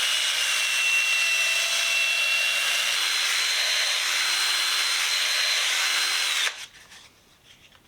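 A power tool's motor running steadily with a sanding hiss as a screw head is cleaned up with 600-grit sandpaper. The motor's whine steps up in pitch about three seconds in, and the tool stops about a second before the end.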